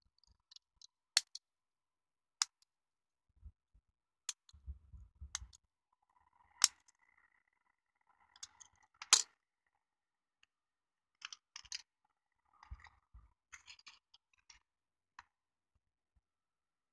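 Plastic parts of an N gauge model train car clicking and snapping as the body is pried apart by hand. There are a dozen or so scattered sharp clicks, the loudest about nine seconds in, between light rustles and bumps of handling.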